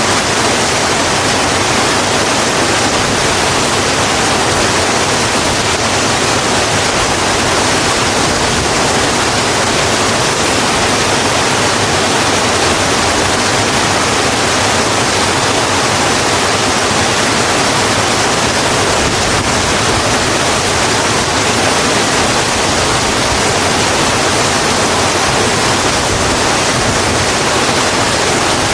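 Steady rain falling on a road: an even, unbroken hiss that does not change in level.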